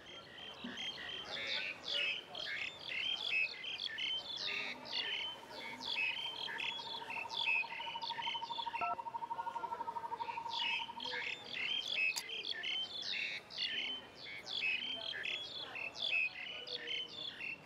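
Small birds chirping in quick, repeated calls, with a steady, fast-pulsing trill running through the middle of the stretch and fading out about two-thirds of the way through.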